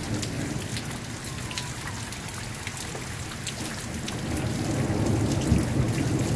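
Steady rain with individual drops ticking close by, and a low thunder rumble swelling in over the second half.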